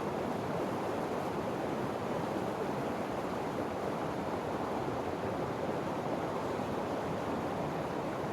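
Creek water running steadily, an even rushing sound with no distinct strokes or breaks.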